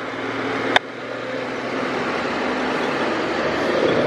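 Fire apparatus engine running steadily, growing slightly louder near the end, with one sharp click about a second in.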